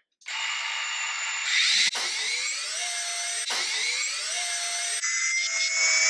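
FPV quadcopter's T-Motor F40 Pro V3 brushless motors spinning in a test run: a high whine that breaks off and spins up again twice, its pitch rising each time.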